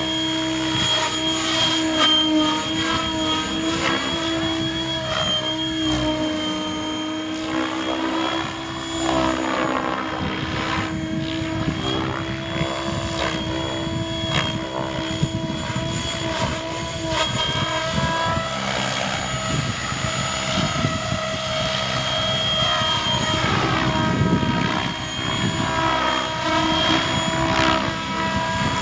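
Electric radio-controlled helicopter flying: a steady high whine from the brushless motor and drivetrain over the rush of the rotor blades. The pitch wavers slightly, and the sound swells and fades in sweeps as the helicopter moves about.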